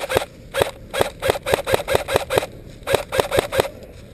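AK-style airsoft electric rifle firing single shots on semi-auto in quick strings, about five shots a second with short breaks between strings, stopping shortly before the end.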